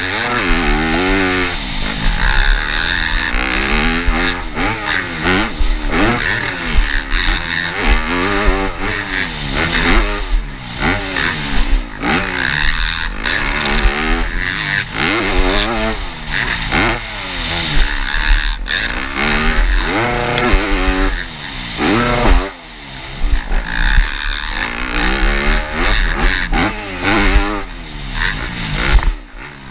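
Motocross bike engine revving up and down over and over as the bike accelerates and backs off through the jumps and turns, heard from the rider's helmet, with a steady rushing hiss over it.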